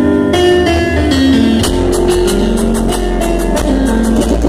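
Loud dance music played through a sonido's large sound system, with a melody line, heavy bass and a steady percussive beat; the deep bass grows stronger about a second and a half in.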